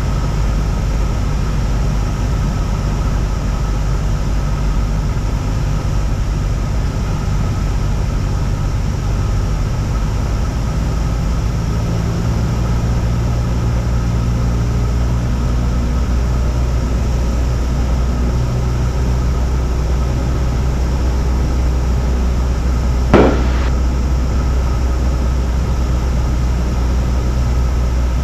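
Cessna 172's four-cylinder piston engine and propeller droning steadily in flight; the engine note shifts about eleven seconds in. A single sharp knock stands out near the end.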